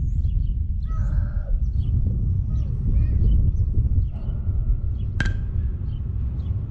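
A bat hits a pitched ball once, about five seconds in: a single sharp crack with a brief ring. Under it runs a steady low rumble, with birds chirping.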